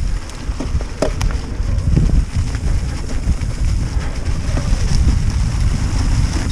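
Wind buffeting the camera microphone while a mountain bike rolls along the trail, a steady low rumble, with a few sharp knocks, two close together about a second in.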